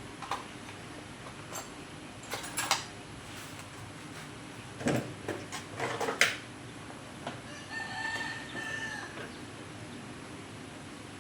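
Several sharp knocks and clatters of tools and metal parts being handled at a workbench, then a rooster crows once, about a second and a half long, near the end.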